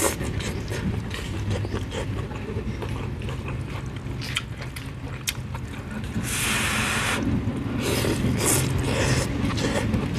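Noodles being slurped and chewed close to the microphone: short wet clicks and smacks, with one long slurp about six seconds in. A steady low motor hum runs underneath.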